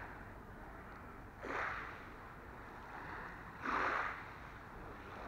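Small waves lapping on a pebble beach: two soft washes of water, about a second and a half in and again near four seconds, each swelling and fading.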